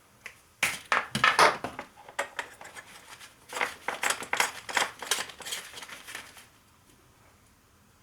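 Thin plastic reflective film crinkling and lightsaber parts clicking as they are handled, a quick run of small clicks and rustles that stops about six and a half seconds in.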